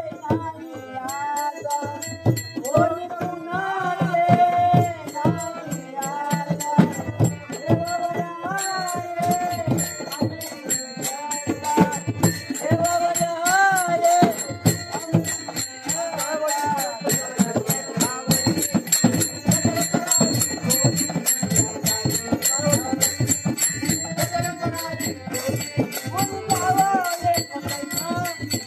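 Marathi folk song: a voice singing over dense drum beats, with steady metallic jingling joining about eight seconds in.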